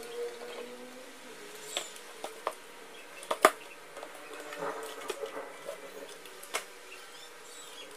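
Small clicks, taps and scratching of hands handling and fitting flat iron parts during reassembly, with one sharp click about three and a half seconds in.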